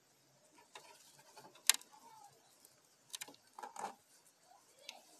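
Scattered sharp clicks and soft rustling from close handling. The loudest click comes about a second and a half in, and a cluster of clicks follows a little later.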